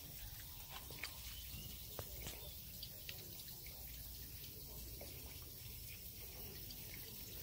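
Quiet background with a low steady rumble and a scatter of faint, short ticks, a few a second at most.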